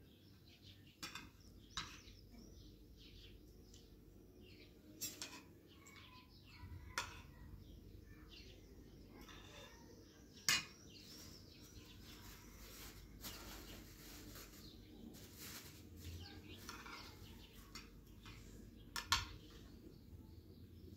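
Birds chirping faintly, with scattered sharp clicks and knocks, the loudest about halfway through and near the end.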